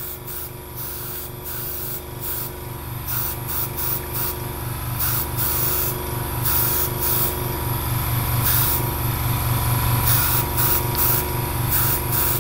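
Airbrush spraying suede paint in many short hissing bursts as the trigger is pressed and released. Underneath, the small air compressor that feeds it runs with a steady, rapid low pulse.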